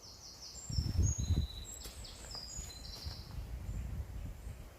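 A songbird singing a run of short, high, clear notes that jump between pitches, with wind buffeting the microphone in low gusts about a second in.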